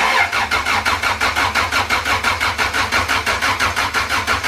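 Turbocharged Honda B20 VTEC four-cylinder engine being cranked by its starter, turning over in quick, even pulses at a steady rate without catching. It is being cranked to prime oil through the new turbo.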